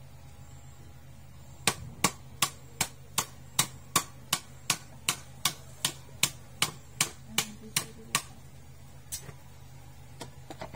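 A knife chopping fish on a wooden board: about eighteen sharp, evenly spaced chops at roughly two and a half a second, then a few lighter knocks near the end.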